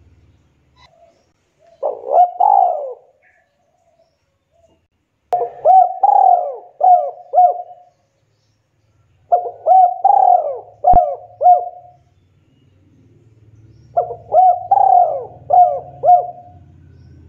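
Spotted dove (tekukur) cooing: a short phrase, then three longer phrases of four or five hooked coos each, about four seconds apart.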